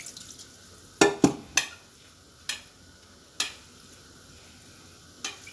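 Hand rubbing and breaking up wet, freshly steamed vermicelli in a glazed clay dish to loosen the strands. Several short, sharp rustling crackles come from the strands and the dish, loudest about a second in.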